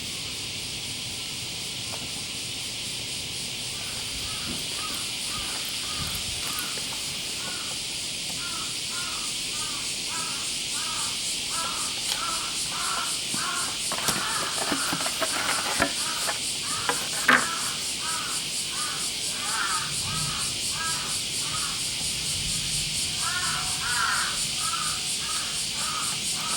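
Birds calling outdoors: a long run of short calls, several a second, starting a few seconds in, over a steady high hiss, with one sharp click partway through.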